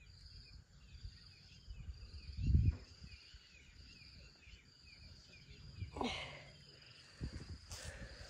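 An insect chirping steadily in a high, even pulse about once a second, with faint bird chirps under it. A brief low rumble comes about two and a half seconds in.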